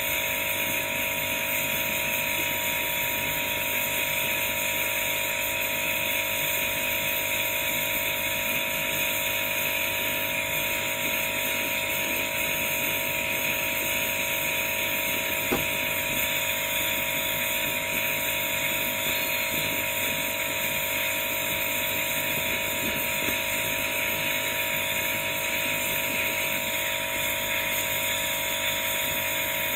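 Jeweller's gas torch burning with a steady hiss and a constant hum.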